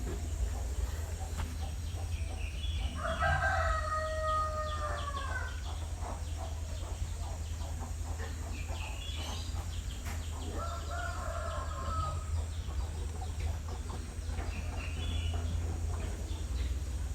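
Rooster crowing: a long cock-a-doodle-doo about three seconds in, another about ten seconds in, and a fainter call near the end, over a steady low hum.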